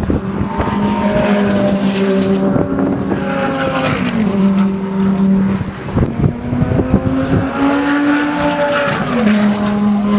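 Supercar engine running and being revved: its pitch climbs about two seconds in and falls back at about four seconds, then climbs again and falls back near the end.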